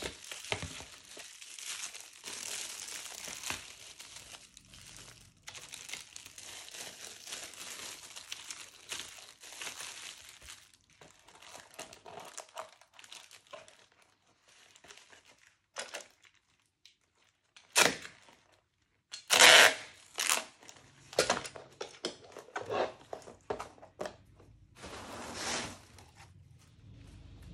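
Plastic packaging crinkling and tearing as it is handled and pulled open: continuous rustling for about the first ten seconds, then separate short rustles and knocks, the loudest burst about two-thirds of the way through.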